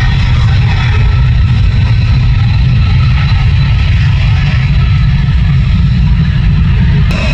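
F-22 Raptor's twin Pratt & Whitney F119 turbofan engines running as the jet taxis past: a loud, steady jet rumble with a thin, steady high whine over it.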